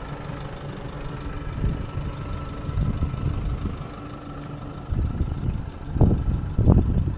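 Low, steady rumble of a running vehicle, with short louder surges about five, six and seven seconds in.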